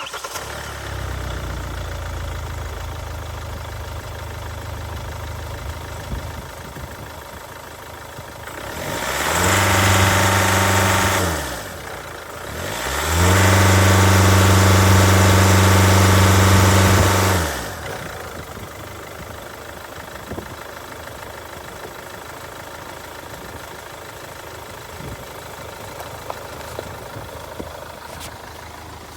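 Hyundai i40's 1.7-litre D4FD four-cylinder diesel idling, revved twice about a third of the way in, first briefly and then held for about five seconds, before settling back to idle. The engine has a failed cylinder head gasket that lets water into the oil.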